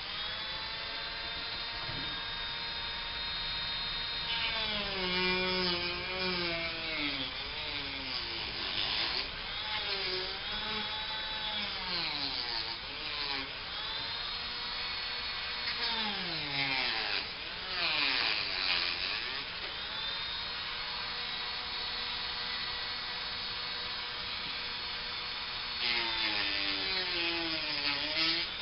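Handheld electric power tool running steadily, its motor pitch dropping and recovering again and again as it is pressed into the work, with a gritty rubbing noise while it cuts or sands.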